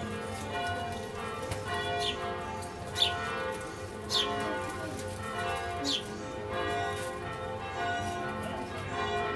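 Church bells ringing a peal, many overlapping tones hanging on, with fresh strikes every second or so and a few sharper, louder strikes standing out.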